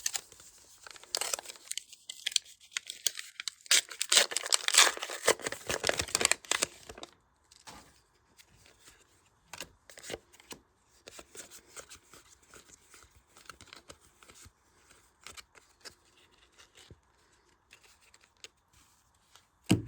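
Booster pack wrapper being torn open and crinkled for several seconds near the start. After that come only faint light rustles and clicks of cards being handled.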